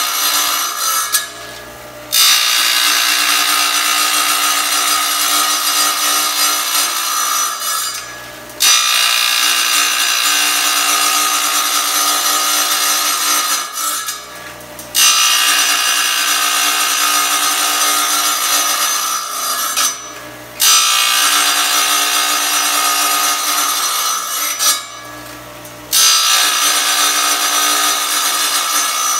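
Small wet tile saw's blade grinding into a tile in long passes, cutting a circle out of it. About five times the grinding drops away for a moment and only the motor's hum is left as the tile is eased off the blade and repositioned.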